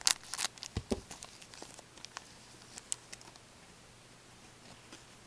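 Foil wrapper of an O-Pee-Chee hockey card pack being torn open and crinkled. It starts with a quick cluster of sharp crackles in the first second, followed by a few fainter ticks as the cards are handled.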